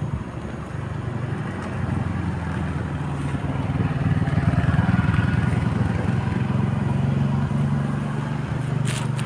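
A motor vehicle's engine running steadily, growing louder around the middle and then easing off.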